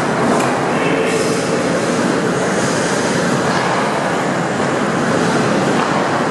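Continuous loud noise of ice hockey play in an indoor rink, with skate blades scraping the ice now and then.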